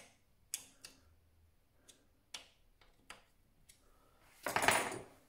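Scattered light metal clicks and taps from parts of a mini lathe being handled at the tool post and compound slide, about seven in four seconds. Near the end comes a louder, brief scraping rustle.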